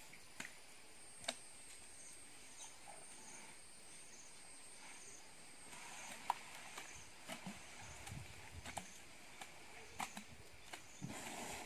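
Scattered sharp snaps and rustles of grass and twigs as an elephant forages with its trunk, with a louder rustle near the end. Behind them, insects keep up a faint high chirp, repeating about twice a second.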